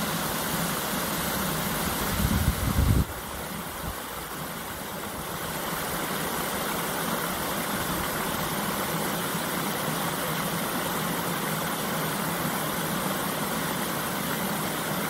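Small waterfall pouring over a stone ledge into a stream: a steady rush of falling water. About two seconds in there is a brief, louder low rumble.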